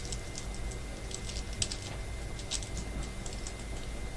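Clothes iron being pushed over ironing paper on Perler beads: scattered light clicks and paper crinkles at an irregular pace, over a steady low hum.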